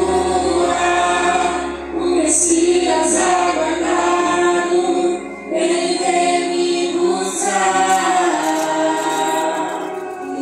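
Worship group singing a sustained, slow hymn melody over a steady held keyboard tone, in long phrases with brief breaths between them.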